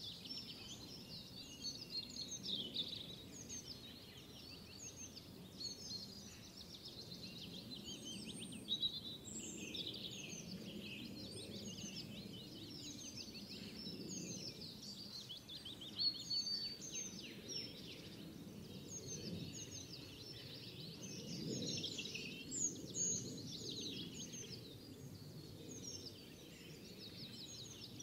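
Many small birds chirping and twittering continuously, in quick overlapping calls, over a low steady rumble of background noise.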